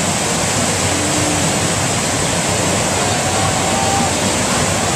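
Loud, steady rush of water from an artificial wave ride: a sheet of water pumped continuously at high speed.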